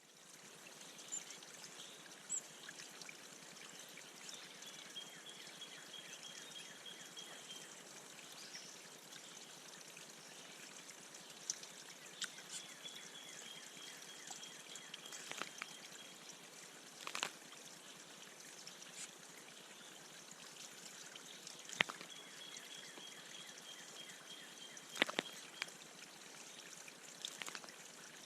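Water trickling steadily at a bird bath, with several sharp taps and splashes. Three times a high, thin note is held for a couple of seconds in the background.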